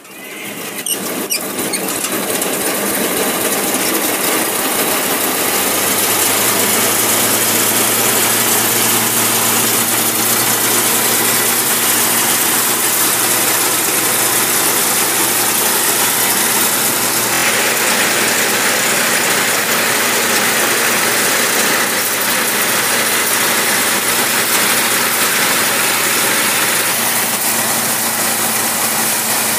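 Engine driving a paddy thresher starts up and spins up over the first few seconds, then runs loud and steady with a low hum; the sound turns brighter about seventeen seconds in.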